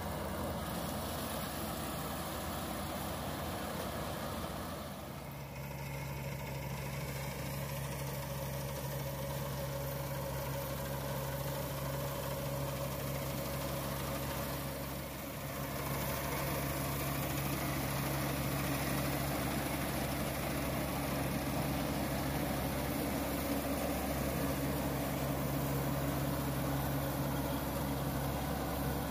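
Kubota combine harvester's diesel engine running steadily under load as the machine cuts and threshes wheat: a continuous low drone that dips briefly twice.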